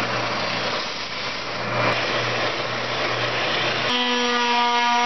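Oscillating spindle sander running with a wood edge held against its sanding drum: a steady, rough hiss over a low hum. About four seconds in, the sound changes to an electric palm sander's steady, pitched whine.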